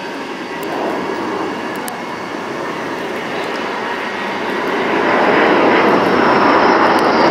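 Jet noise from a formation of four twin-engine J-20 stealth fighters passing overhead, a steady rushing sound that grows louder about five seconds in.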